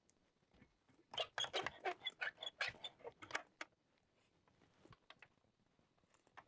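Key and lock rattling at a bamboo hut's door as it is unlocked: a quick run of metallic clicks and jangles lasting about two and a half seconds, with a few faint clicks after.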